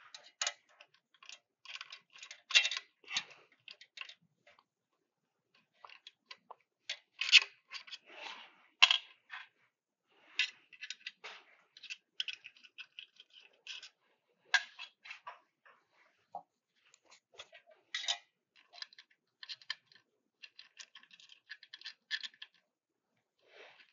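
Irregular light clicks, taps and short scrapes of a screw and fingers on the aluminium lift column and base plate of a galvo laser, as a mounting screw is fumbled toward its hole.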